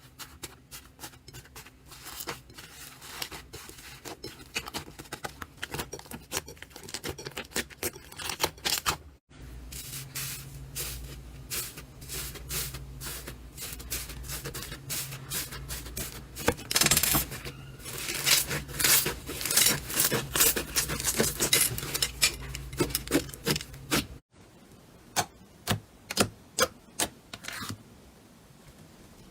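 Slime being squeezed and worked by hand, giving rapid sticky clicks and crackling pops, loudest in the middle stretch. A steady low hum runs under that middle stretch.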